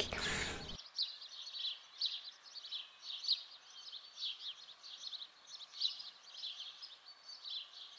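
Small birds chirping in a steady run of short, high chirps, several a second.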